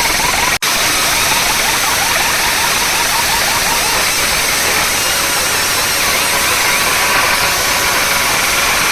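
Very loud outdoor DJ sound-system stack overloading the microphone, heard as a steady, distorted wash of noise, cut off for an instant about half a second in.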